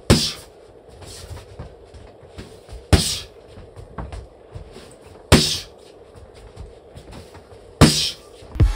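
Boxing glove punches smacking into a focus mitt: four sharp hits about two and a half seconds apart, each a cross thrown after a slip.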